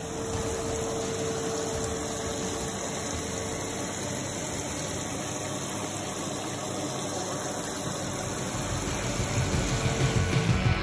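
Water pouring into a grooming spa tub and churning with bubbles, with the tub's pump running as a steady hum underneath.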